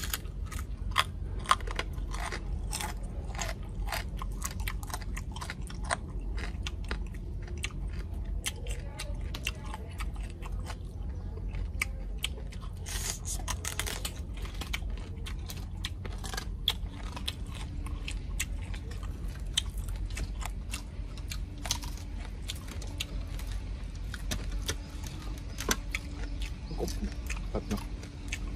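A person chewing crispy deep-fried crocodile head, with many sharp crunches of the fried skin all through.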